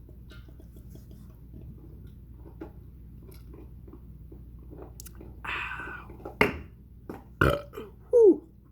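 A man burps loudly near the end: a short sound falling in pitch. It comes after a rasping breath and two sharp clicks about a second apart.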